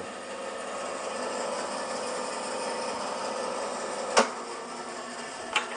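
Steady machine hum with a sharp knock about four seconds in and two quick clicks near the end, as a chisel clears the last bit of waste from a mortise.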